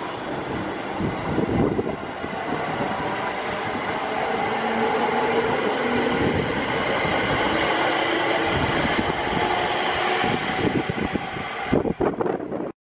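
An electric commuter train moving past along the platform, its motors and wheels on the rails getting louder as it picks up speed. The sound fades near the end, then cuts off abruptly.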